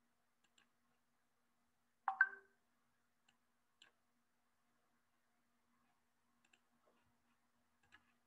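Faint scattered clicks, with one louder short clack about two seconds in, over a faint steady low hum.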